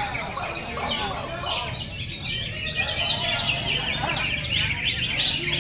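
A dense chorus of many caged songbirds, cucak ijo (green leafbird) among them, singing at once: fast overlapping chirps, whistles and trills, over a steady low background murmur.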